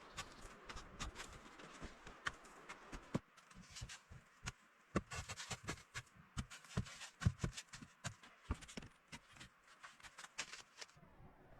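Light knocks and clicks at an irregular pace over a faint hiss, as of things being handled or worked by hand.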